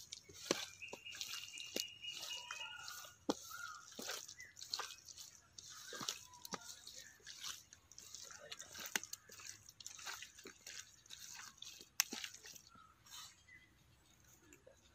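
Raw beef pieces being squished, turned and slapped by hand on a steel plate: irregular wet squelches and smacks.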